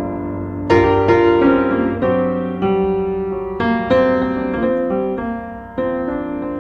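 Piano music: a slow piece of struck chords and melody notes, each fading before the next.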